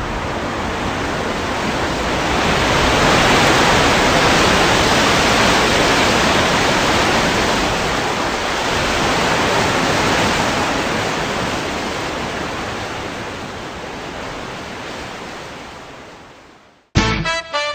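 A steady, even rushing noise with no pitch or rhythm. It swells a little, then fades out over the last few seconds.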